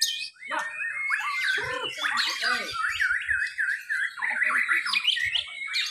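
White-rumped shamas (murai batu) singing in competition: a fast, varied run of whistled notes. About halfway through comes a string of repeated swooping notes, then a quick rattling series.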